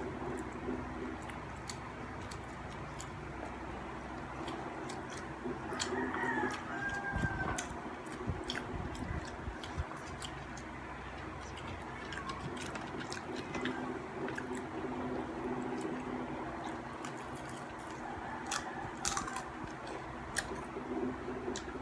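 Close-miked chewing and mouth clicks of someone eating a bread roll, over a steady low hum. Brief chirping calls come in about six seconds in and again near the end.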